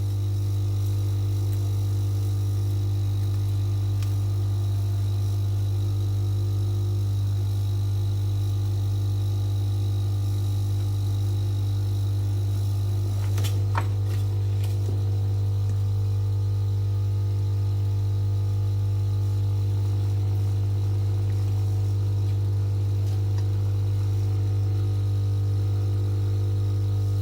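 Steady electrical mains hum with a buzzy edge, with a single faint click about halfway through.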